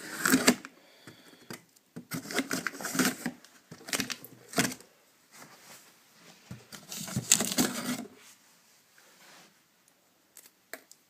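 A cardboard box being cut open with a knife and its packing pulled about: four bursts of scraping and tearing, then a few faint clicks after about eight seconds.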